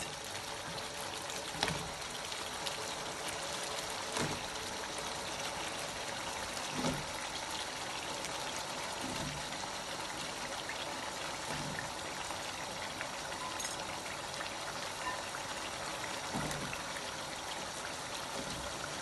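Onion-tomato masala frying in oil in a karahi: a steady sizzling hiss, with a few knocks as cut potatoes go into the pan and are moved about.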